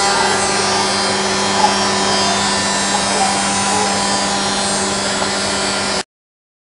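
Spindle of a 5-axis CNC woodworking centre machining solid wood: a steady machine tone under cutting noise. The sound cuts off abruptly about six seconds in.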